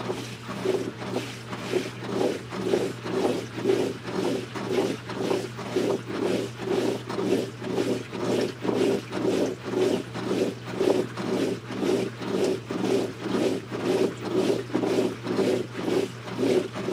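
LG top-load washing machine in its wash cycle: the load of drapes sloshing and churning in the water as the wash plate works back and forth, in about two regular surges a second over a steady low motor hum. The audio is sped up with the time-lapse.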